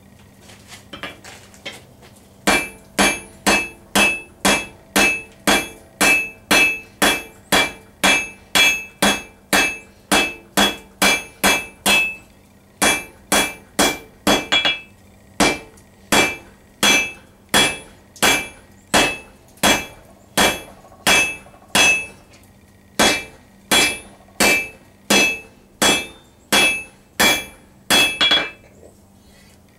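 Hand hammer striking a hot round steel bar on an anvil, about two blows a second, each with a short metallic ring, as the bar is tapered. The blows begin a couple of seconds in, with two brief pauses.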